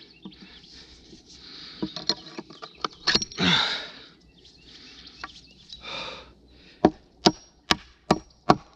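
A hand tool striking wood in sharp blows: a few scattered strikes at first, then a steady run of about two or three blows a second in the second half.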